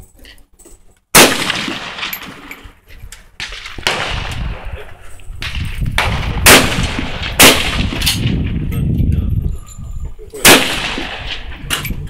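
SKS rifle firing 7.62×39mm rounds: four loud, sharp shots, the first about a second in, two less than a second apart in the middle, and one more near the end, each with a short echo trailing off.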